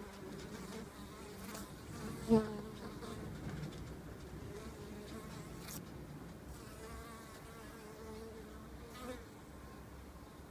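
Honeybees buzzing around a hive entrance, a wavering hum of wingbeats that swells and fades, with one louder buzz about two seconds in.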